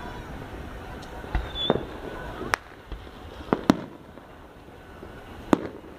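Fireworks going off: about six sharp bangs and pops at irregular intervals over a few seconds.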